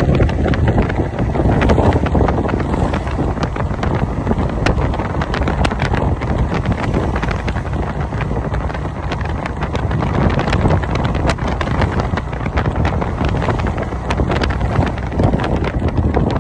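Loud wind buffeting the microphone from the open side of a moving auto rickshaw (tuk-tuk), over a steady rush of road and vehicle noise.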